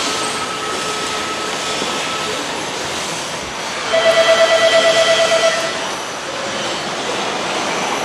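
Steady machinery noise of a motorcycle assembly line. About halfway through, a pulsing buzzer tone sounds for under two seconds, about seven pulses a second.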